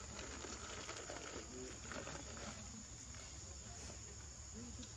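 Steady high-pitched drone of insects in the forest, with a few faint scattered clicks.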